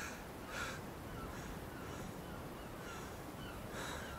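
Harsh bird caws repeated every half second to a second, with faint thin chirps between them, over a low steady rush.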